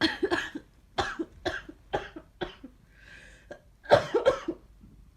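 A person sick with a cold or flu in a coughing fit: a run of short, sharp coughs about half a second apart, a quick breath in, then the loudest coughs near the end.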